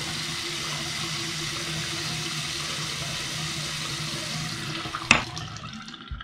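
Water running from a single-lever bathroom faucet into the sink basin, a steady rush with a low hum beneath it. About five seconds in the lever is shut with one sharp knock and the flow dies away.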